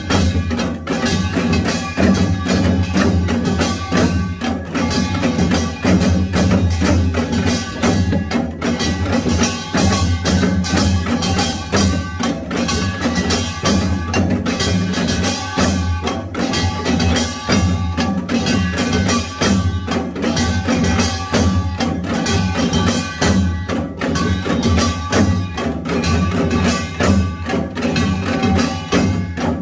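Korean pungmul percussion ensemble playing a Yeongnam nongak rhythm: gongs and drums struck in a dense, driving beat that runs on without a break.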